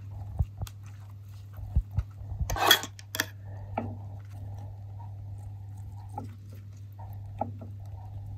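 Spoon spreading mayonnaise over burger buns on a ceramic plate: a few soft knocks, and two sharp scrapes or clinks of the spoon against the plate about three seconds in, over a steady low hum.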